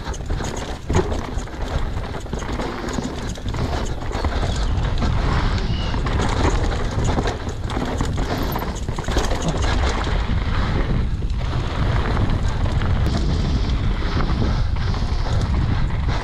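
Downhill mountain bike ridden fast over a dry, rooty dirt trail: a steady rush of tyre and wind noise with constant knocks and rattles from the bike as it hits roots and bumps.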